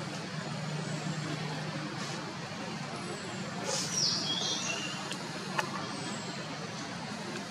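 A newborn long-tailed macaque gives a brief high-pitched squeal that slides downward as it topples over, about four seconds in, over a steady low hum of distant traffic. A single sharp click follows a little later.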